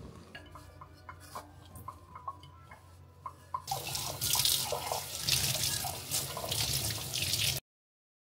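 A kitchen tap running into a sink as a stainless steel milk-frothing jug is rinsed under it. The water starts about three and a half seconds in, after a few light clinks, and cuts off suddenly near the end.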